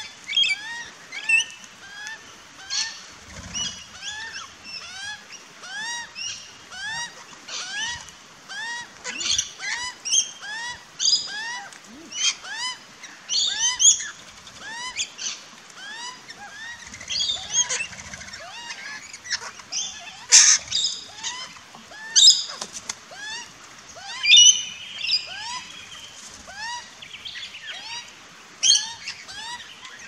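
Birds calling: a steady run of short rising chirps, about two a second, with louder shrill screeches breaking in over them again and again, the loudest a little after twenty seconds.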